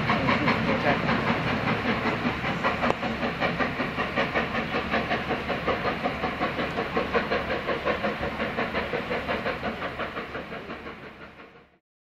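GWR Castle Class four-cylinder 4-6-0 steam locomotive 5043 Earl of Mount Edgcumbe pulling away with a train of empty coaches: a steady rhythmic exhaust beat of about four beats a second, with hiss, fading as the train draws away. The sound cuts off abruptly near the end.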